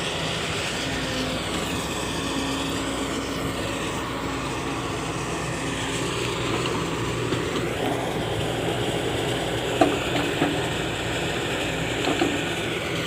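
Excavator's diesel engine running steadily, with a few short sharp knocks about two-thirds of the way through.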